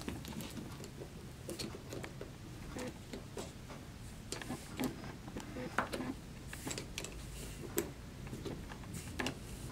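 Faint, irregular small clicks and scrapes of a metal tubing clamp being threaded by hand onto polyurethane tubing over a barbed fitting.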